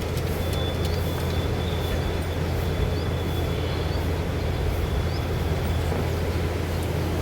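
A steady low mechanical hum, with no change in pitch or level.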